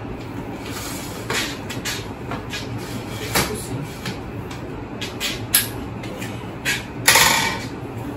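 Clicks, knocks and rattles of a Crossmac Haagen 90 folding bicycle's alloy frame and parts being handled and folded by hand, over a steady low hum. The loudest is a scraping clatter about seven seconds in.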